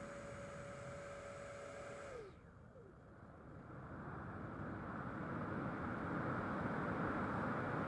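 Motor of a radio-controlled Me262 model plane: a steady whine that glides down in pitch and fades about two seconds in as the motor winds down, then a rushing sound of motor and airflow swells back up over the next few seconds and holds louder.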